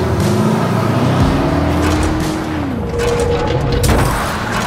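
Race-car engine sound effect laid over a diecast toy car race: a pitched engine note that climbs slightly, then drops away about two and a half seconds in, followed by a shorter, higher engine note.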